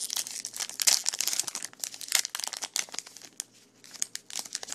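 Crinkling and tearing of a trading-card pack wrapper being opened and handled, busiest in the first couple of seconds and sparser after.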